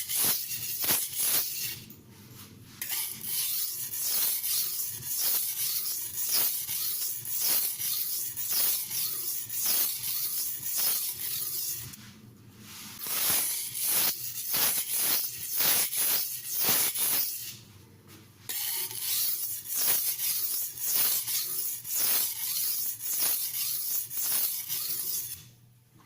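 Steel knife edge stroked back and forth on a water-soaked silicon carbide sharpening stone with light pressure: a rasping hiss at about two strokes a second, with three short breaks, stopping near the end.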